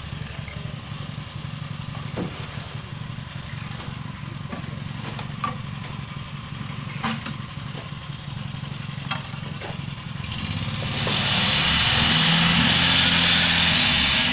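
A small engine, that of a mobile concrete block-making machine, runs steadily at an even low pitch, with a few sharp knocks scattered through it. From about ten seconds in, a loud, steady hiss rises over it and stays.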